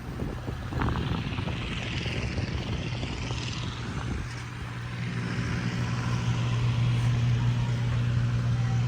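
An engine running steadily with a low, even hum that grows louder about halfway through, with a few knocks near the start.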